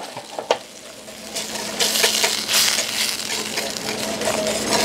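Wire whisk stirring sauce in a stainless steel saucepan, its tines clinking and scraping quickly against the metal pan. It starts about a second and a half in.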